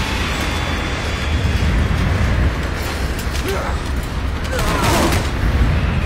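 Action-film sound effects: a loud, continuous deep rumble under rushing noise, with brief squeals or cries a few seconds in.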